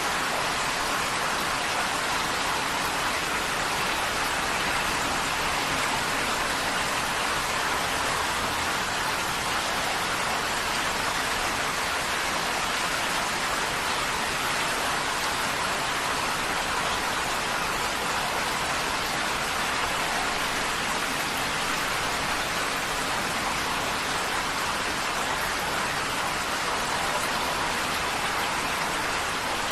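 Heavy rain falling steadily on a tin roof: a dense, even hiss of drops with no single strike standing out and no change in strength.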